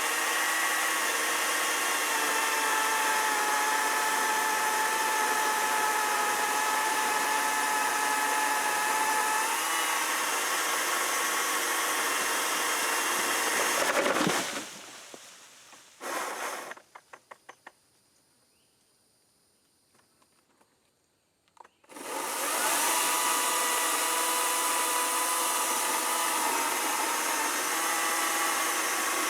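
Greenworks battery-powered chainsaw running with a steady electric whine while cutting an oak limb. About halfway through it stops and winds down, gives a short burst, a quick row of light clicks follows, and after a few seconds of near silence it starts up and runs steadily again.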